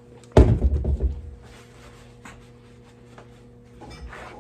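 A single heavy thud about half a second in, like something solid being set down or dropped on a hard surface, with a short low rumble after it, then a few faint clicks. A steady low electrical hum runs underneath.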